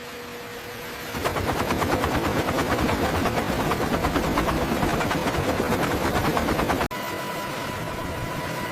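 Helicopter rotor blades chopping in a rapid, even beat. Near the end it cuts off abruptly into a steadier running noise with a high whine.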